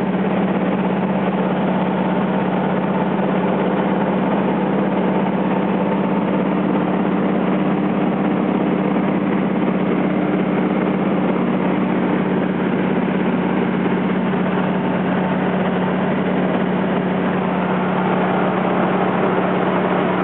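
Light aircraft's engine and propeller droning steadily in flight, with one constant low hum and dense noise and no change in pitch.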